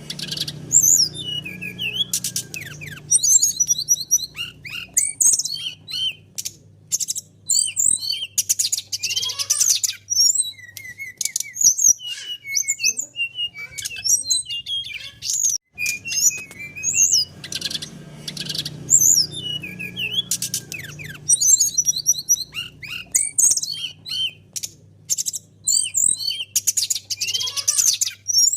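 Brown-chested jungle flycatcher (SRDC) singing a rapid, varied song of high chirps, trills and whistled notes over a faint low hum. The same song passage repeats about halfway through.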